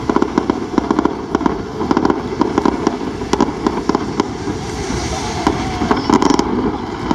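Fireworks going off in a rapid, continuous string of bangs and crackles.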